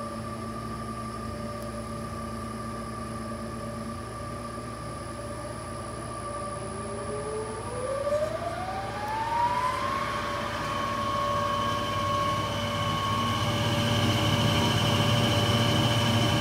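Eillert G4400 belt slicer's electric drive motors running with a steady whine and low hum. From about six and a half seconds in, a rising whine as the knife speed is turned up on its speed controller, levelling off some three seconds later, after which the machine runs louder.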